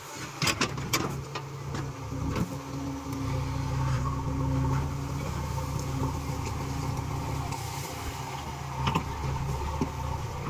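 JCB 3DX backhoe loader's diesel engine running steadily under hydraulic load while the backhoe bucket works a pile of dry sugarcane trash. A few sharp clanks come in the first second and again near the end.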